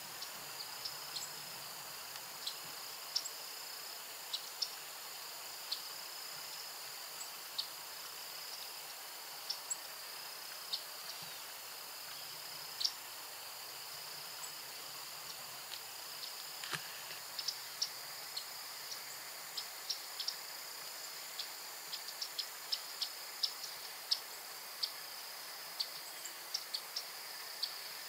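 Crickets trilling in a steady high-pitched drone, with short sharp chirps scattered over it that come more often in the second half.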